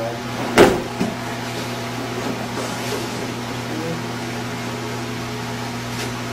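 A body lands on a padded mat in a breakfall about half a second in, followed by a lighter thud. A steady low hum runs underneath.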